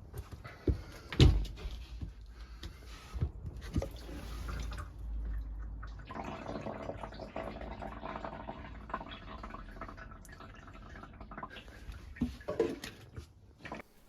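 Water trickling and dripping into a stainless steel sink, with a few sharp knocks in the first few seconds and another near the end; the flow grows steadier about halfway through.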